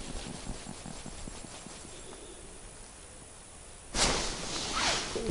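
Faint outdoor background, then about four seconds in a sudden run of crunching and rustling: boots on snow and clothing as someone moves about on a frozen lake.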